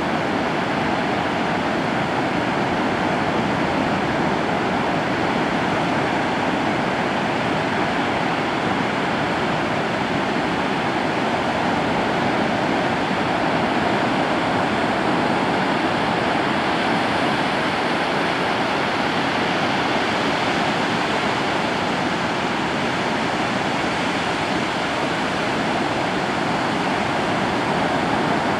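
Ocean surf breaking on a beach: a steady, unbroken roar of waves.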